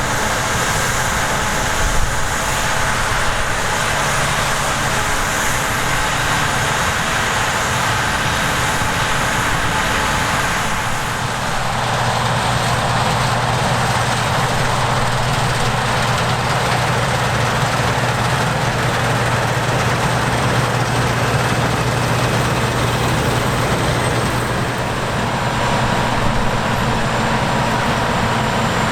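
Heavy harvest machinery engines running steadily under load. About eleven seconds in, the mix of tones changes and a deep engine hum becomes the strongest sound.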